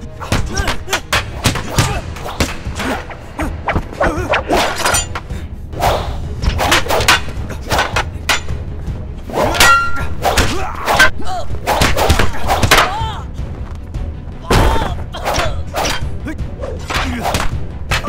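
Fight sound effects of long wooden poles: a rapid run of sharp strikes and clacks, thuds of blows landing, and a ringing metallic clang about ten seconds in, over film music.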